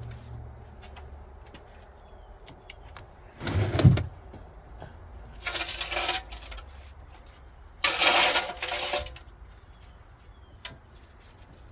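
Work noise from handling parts in a boat hull: three bursts of scraping and clattering, with a heavy thump at the first, about four seconds in.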